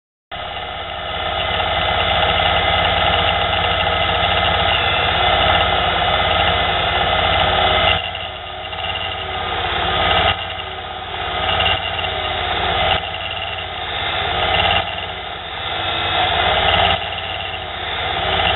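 Small benchtop mini lathe running, its motor and spindle whirring steadily while the tool bit takes a light cut along a metal gate hinge pin. In the second half the cutting noise swells and eases every second or two as the carriage is fed by hand.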